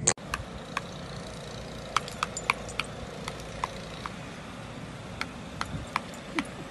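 About a dozen light, sharp clicks with a slight metallic ring, at irregular intervals over a faint steady hiss.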